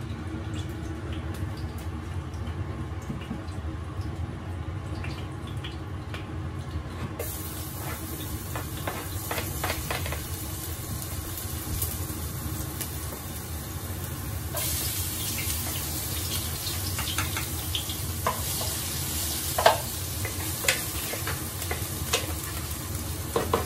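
Oil sizzling in frying pans on a gas stove, the hiss getting louder in two steps. Near the end come a few sharp clacks of a wooden spatula on the pan as chopped garlic and chili are scraped in off a cutting board to start the sauté.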